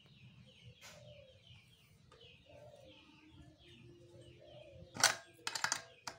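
Small birds chirping rapidly and continuously. About five seconds in, a few sharp metallic clicks and clinks as a spanner is worked on the bike wheel's axle nut; these are the loudest sounds.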